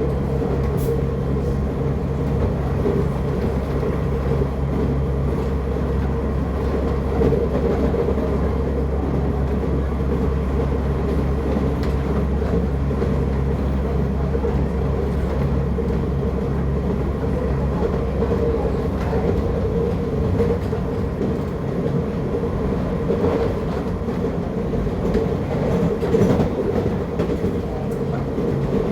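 Série 8500 electric commuter train running between stations, heard from inside the car: steady running noise with a low hum and faint clicks from the wheels over the rails. The low hum weakens about two-thirds of the way through.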